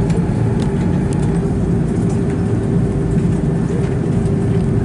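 Steady cabin noise inside an Airbus A330 taxiing after landing: a continuous low rumble with a steady hum.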